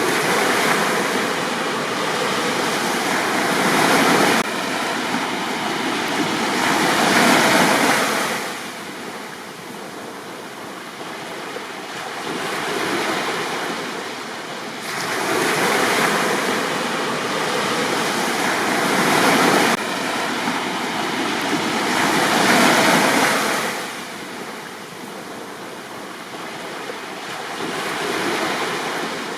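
Sea waves breaking and washing up a beach, each surge swelling and fading every few seconds.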